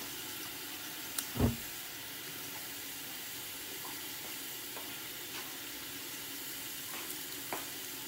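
Pot of chicken broth simmering on the stove, a steady hiss, with one short knock about a second and a half in.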